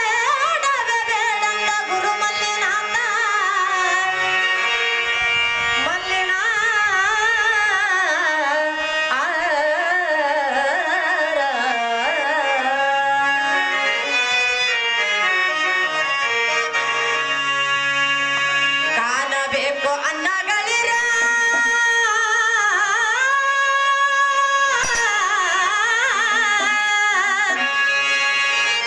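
Kannada bhajan (devotional song): a sung melody with ornamented glides over harmonium and tabla accompaniment.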